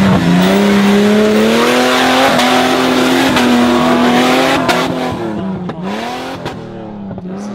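Off-road buggy engine revving hard on a steep rock climb and held at high revs while the tyres spin and throw up dust. Over the last couple of seconds the revs drop and rise again in quick blips.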